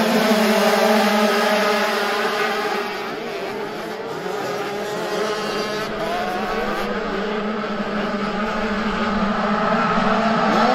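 Several motocross bikes racing, their engines revving up and down over one another. The sound eases off about three seconds in and builds again toward the end.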